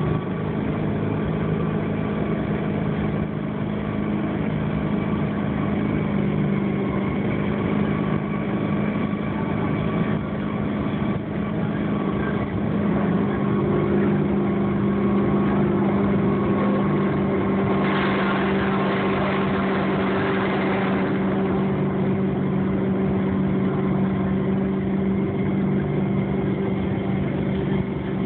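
Motorboat engine running steadily at towing speed, with water and rushing noise; a louder rush of noise comes through about two-thirds of the way in.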